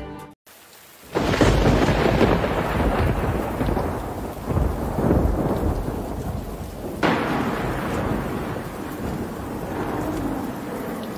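Thunder over steady rain: a loud clap about a second in that rolls on and slowly dies away, then a second sharp clap about seven seconds in that rumbles on.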